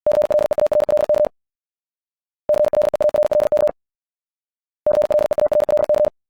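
Morse code at about 70 words per minute: a single steady mid-pitched tone keyed on and off in very fast dots and dashes. It comes in three bursts of a little over a second each, with about a second of silence between them.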